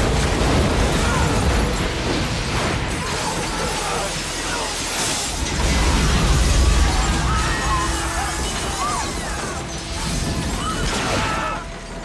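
Film bomb explosion: a loud blast at the start, then shattering glass and falling debris, with a second heavy rumbling surge a few seconds in, all under a dramatic music score.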